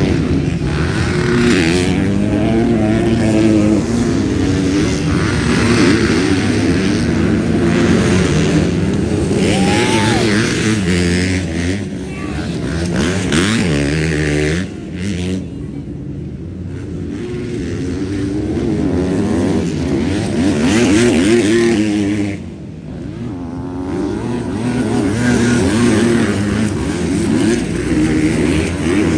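Several MX2 motocross bikes racing, engines revving up and down through the gears. The sound drops briefly about halfway through and again about three-quarters of the way through, then builds again.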